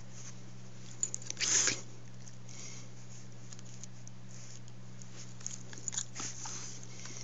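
Dog mouthing and nipping at a hand in play: a cluster of clicks and a short noisy burst about a second and a half in, and more clicks and rustles near the end, over a steady low hum.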